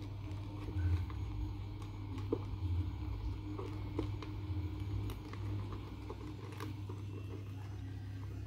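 Four kittens eating from a plastic bowl: faint, scattered small clicks of chewing and of mouths knocking the bowl, over a steady low hum.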